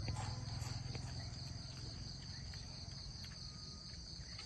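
Insects chirring in a steady, unbroken high-pitched drone, with a low hum that fades out within about the first second.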